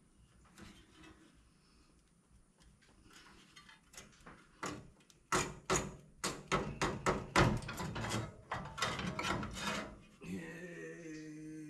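Hand-tool and parts work on a car: a run of sharp knocks and clicks, two or three a second, starting about halfway through. Near the end a man gives a short low hum.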